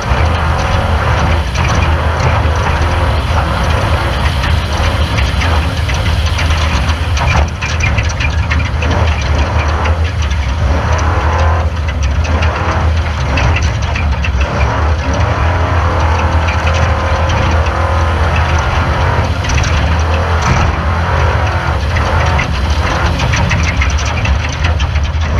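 Off-road race car engine running hard and steady, with frequent rattles and knocks throughout.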